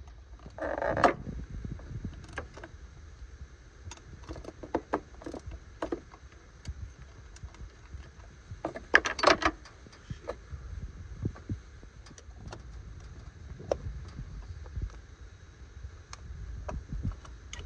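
Scattered clicks and small metallic rattles of hands and a screwdriver working on an engine's distributor and ignition coil wiring, with two louder rustling scrapes about a second in and near the middle, over a low rumble.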